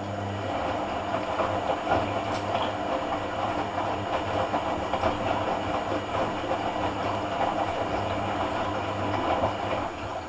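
Hoover AC166 Classica 1200 automatic washing machine running in its cotton rinse cycle: a steady motor hum with a busy rattling texture. It grows louder at the start, then drops back to a quieter run just before the end.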